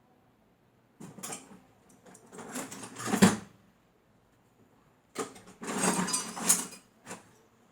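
Small metal fan-motor parts handled on a workbench: two spells of rattling and scraping, with a sharp metal knock a little after three seconds in and a short click near the end.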